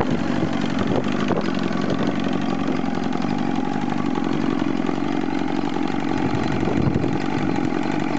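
Johnson 115 outboard motor running steadily at an even idle, without revving.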